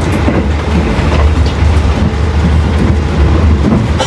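Argo Dwipangga train running, heard inside a luxury-class passenger carriage: a steady low rumble with faint clicks of the wheels.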